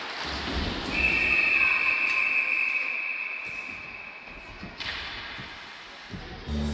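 A referee's whistle blown in one long, steady blast of about four seconds, stopping play on the ice, over rink noise. A sharp knock comes near the end, and music from the rink's speakers starts just before the end.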